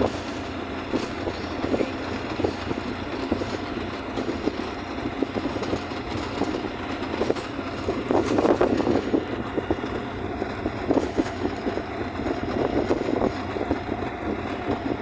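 A moving vehicle running with a steady rumble and frequent irregular rattling knocks, busiest about eight seconds in.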